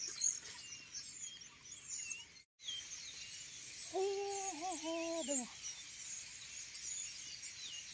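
Wild birds chirping and singing, many short high calls overlapping. For about a second and a half from around four seconds in a woman's voice is heard briefly, and the sound cuts out for a moment just before that.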